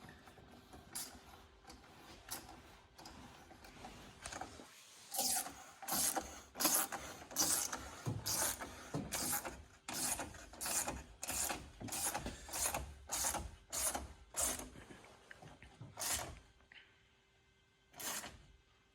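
Hand ratchet clicking in a regular run of short strokes, about one and a half a second, then two last single strokes: a hose clamp on the turbo boost piping being tightened.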